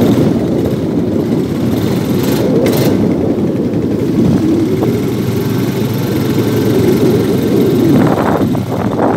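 Quad bike engine running steadily while riding over sand, with a brief hiss about two and a half seconds in.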